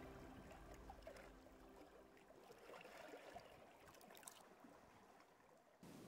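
Near silence: the tail of background music fades out over the first two seconds, leaving faint trickling of open water.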